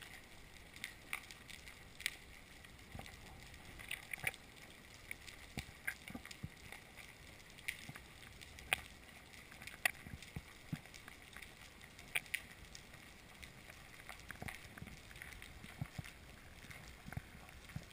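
Underwater ambience picked up through a camera housing: faint irregular clicks and crackles, a few each second, over a low steady hiss.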